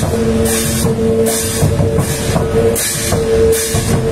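Rock-style music with a steady drum beat: cymbal-like hits about once a second over a held low note.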